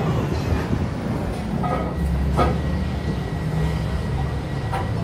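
A steel truck wheel rim is fitted and clamped on a lathe chuck. It clanks loudly against the metal once at the start, then knocks lightly a few more times, over a steady low machine hum.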